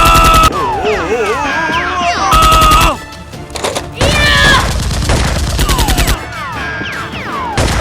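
Automatic-gunfire sound effects in three rapid bursts, the last and longest about four seconds in, dubbed over a Nerf-blaster fight, with background music under them.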